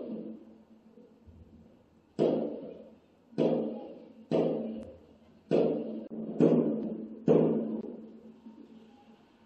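Aerial firework shells bursting, heard through window glass: six dull booms starting about two seconds in, roughly a second apart, each rumbling away.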